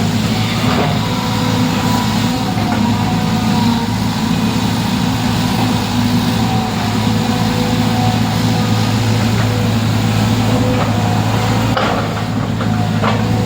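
An engine running steadily with a low, even hum, with a few short knocks near the end.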